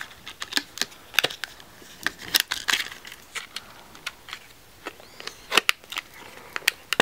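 Cosmetic packaging being handled: irregular clicks, taps and short rustles as a tightly fitted eyeshadow palette is worked out of its box and opened.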